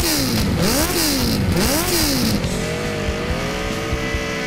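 Sport motorcycle engine being revved: the pitch climbs and falls back three times in quick succession, then the engine is held at a steady higher speed for the last couple of seconds.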